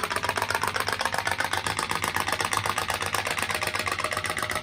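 Homemade flame-heated pop-pop boat steam engine putting in a rapid, even stream of pops as it drives the boat through the water.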